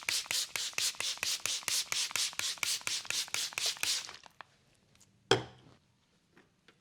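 Hands rapidly chopping and tapping on a person's head during an Indian head massage, an even patter of about six or seven strikes a second that stops about four seconds in. About a second later comes one loud, sharp smack.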